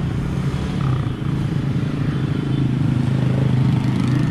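A motor vehicle engine running steadily close by, getting a little louder partway through.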